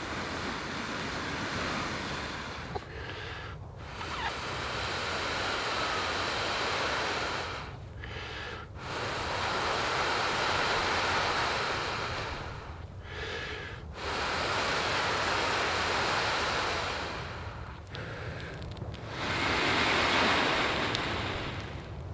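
Long, steady breaths blown into a hand-held tinder bundle to coax an ember into flame: five blows of three to four seconds each, with short pauses between them for breath.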